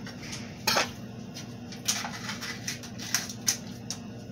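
Kitchen handling clatter: a few short, sharp clicks and clinks of a utensil and plastic containers at a blender cup, the loudest about a second in, over a low steady hum.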